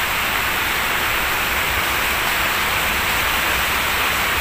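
A steady, even hiss of background noise with no other sound standing out.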